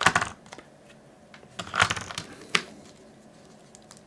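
AA batteries being fitted into a Pentax Optio M20 compact digital camera: short plastic clicks and rattles at the start, and another cluster about two seconds in that ends in a sharp click.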